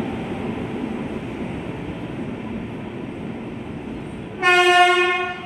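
Indian Railways express train running in with a steady rumble, then the locomotive's horn sounds one blast of about a second near the end.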